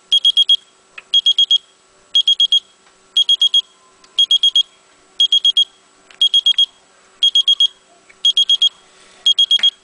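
Electronic alarm beeping: quick groups of four high-pitched beeps, repeating about once a second.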